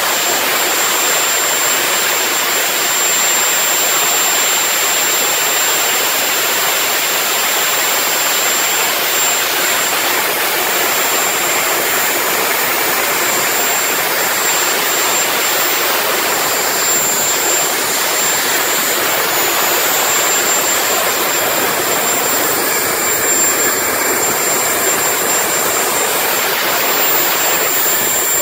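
Gas-turbine jet engine of a homemade jet truck running steadily: a loud, even exhaust rush with a thin, steady high whine on top.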